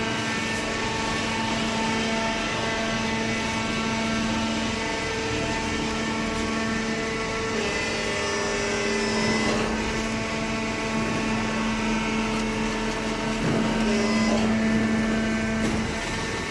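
Hydraulic baling press running: a steady, loud machine hum and whine from its motor and pump, with a slight change in tone around the middle and again near the end.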